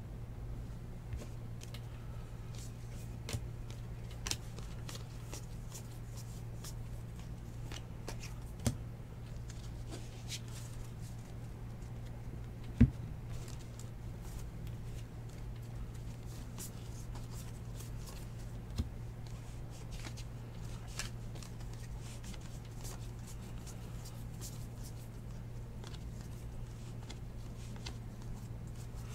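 2019 Bowman Baseball trading cards being handled and sorted by hand: scattered light clicks and slides as cards are flicked through and set down, with one louder tap about thirteen seconds in. A steady low hum runs underneath.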